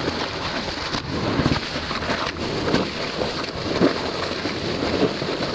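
Muffled, steady rush of moving water with a low rumble, as heard by an underwater camera.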